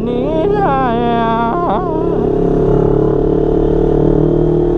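CFMoto 400NK parallel-twin motorcycle engine running steadily at cruising speed. Over it for the first couple of seconds, a voice holds a long, wavering note that slides up and down without words.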